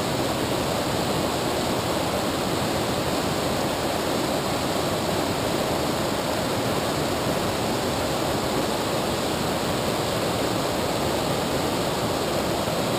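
Steady rush of a fast-flowing river current close to the microphone.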